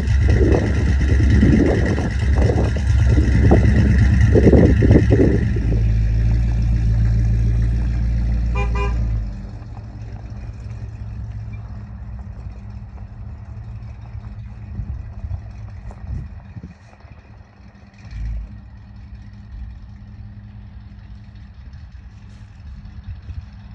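1978 Ford Bronco's V8 engine running close by and revving a few times, then pulling away. Its sound drops sharply about a third of the way in and carries on much fainter. Just before the drop comes a short run of rapid horn toots.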